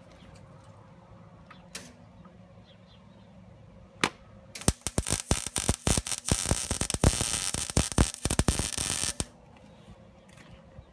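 Wire-feed welder arc crackling and spitting as it welds the scooter's cracked muffler pipe back together. A single short tack about four seconds in, then a steady bead of about four and a half seconds that cuts off suddenly.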